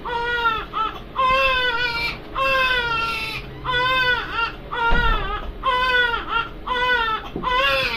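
Infant crying hard in a run of wails, each about a second long with short breaks for breath, about eight in all.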